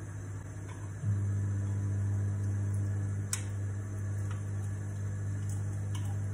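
Steady low mechanical hum of a kitchen appliance motor, stepping up louder about a second in and then holding even. A faint light click a little after three seconds.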